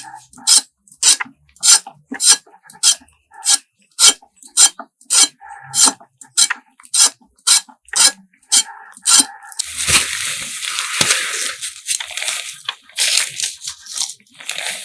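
A knife cutting through crisp vegetables, one crunchy cut about every half second. About ten seconds in, the regular cuts give way to a denser stretch of scraping and rustling.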